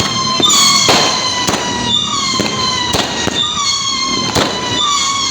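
A 20-shot LF Wolfsong firework cake firing: a quick string of sharp bangs with whistles that fall slightly in pitch, a new whistle about once a second.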